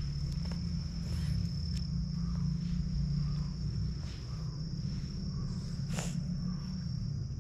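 An insect singing one steady, high-pitched note throughout, over a louder low rumble, with a sharp click about six seconds in.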